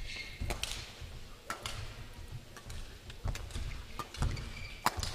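Badminton rally on an indoor court: sharp racket strikes on the shuttlecock, several about a second apart, the sharpest just before the end, with players' footsteps thudding and shoes squeaking on the court floor.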